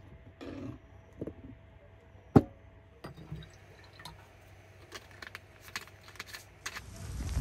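Knife slicing a peach on a cutting board, then red wine poured into a glass and the bottle's screw cap turned, with scattered small clicks and clinks. One sharp knock about two seconds in is the loudest sound, and a hiss comes in near the end.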